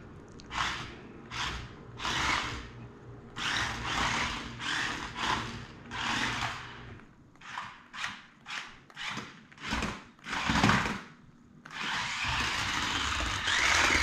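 Toy-grade tracked RC stunt car's electric drive motors whirring in a dozen or so short bursts as the on/off controls are pressed, then running for about two seconds near the end.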